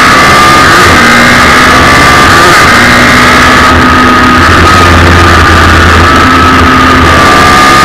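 Race car powered by a Suzuki Hayabusa motorcycle inline-four, heard onboard at speed: the engine runs at high revs with a steady, high note, very loud, over a haze of wind noise.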